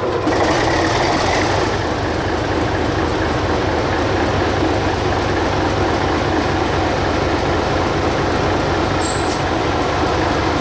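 English Electric diesel engine of a Di-class locomotive running steadily at idle, heard with its hood doors off and the engine bay open. A brief high squeak comes about nine seconds in.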